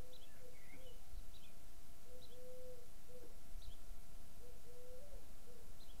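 A dove cooing in low, repeated notes, some short and some drawn out, with brief high chirps from small birds over the top.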